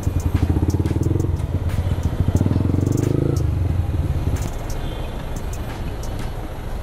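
Motorcycle engine running at crawling speed amid the engines of surrounding jammed traffic: a low engine hum that swells twice in the first three seconds or so, then settles into a quieter rumble.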